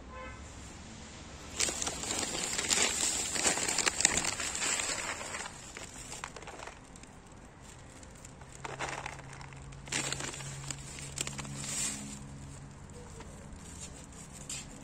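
Cat food bag being crinkled and handled: a dense crackling for about five seconds from a second and a half in, then shorter rustles around nine and eleven seconds.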